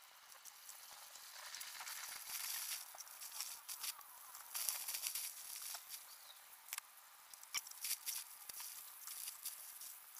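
Thick slices of pork belly sizzling and crackling on a wire grill over hot charcoal, the hiss swelling and fading with sharp pops. There are occasional clicks of metal tongs on the grill as the meat is turned.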